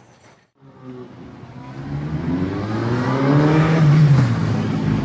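A motor vehicle's engine accelerating past, starting about half a second in, its pitch climbing steadily and growing loud over about three seconds, then dipping as it goes by.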